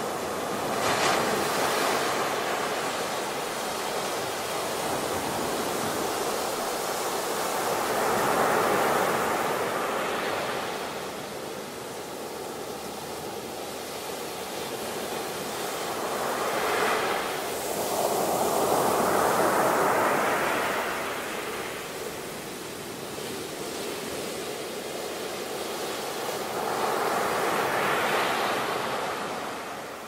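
Ocean surf on a beach: waves breaking and washing up the shore in long surges every eight to ten seconds, with the loudest swells about a third of the way in, past the middle, and near the end.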